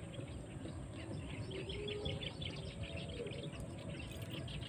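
A small bird calling in a fast run of short, high chirps, over a steady low rumbling background noise.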